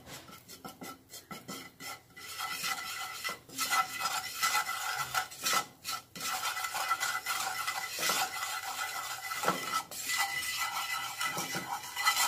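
Wooden spatula stirring and scraping ground pepper and turmeric through a little coconut oil in a nonstick frying pan. A few strokes come first, then steady continuous stirring from about two seconds in, with brief pauses.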